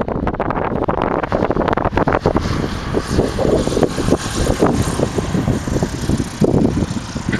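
Wind buffeting the microphone in uneven gusts, over a steady rumble, growing stronger about two and a half seconds in.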